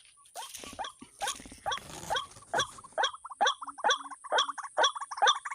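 White-breasted waterhen (ruak-ruak) calling: a series of harsh, grunting notes that come faster and run together after about three seconds.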